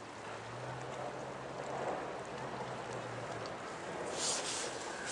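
Outdoor river ambience: an even hiss of flowing water, with a low steady hum through the first few seconds and a brief hissing rush about four seconds in.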